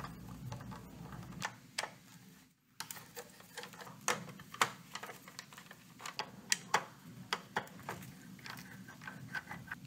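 Screwdriver taking out the small mounting screws of an audio interface's power supply board: a scattering of faint, irregular metal clicks and ticks.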